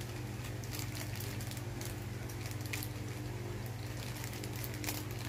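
Thin plastic bag crinkling in a child's hands as he handles it to get the toy part out, in scattered small crackles, over a steady low hum.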